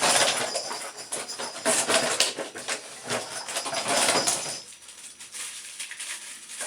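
Screwdriver scraping and clicking against metal shower trim while a stubborn small screw is driven in. It is loud for about four and a half seconds, then dies down.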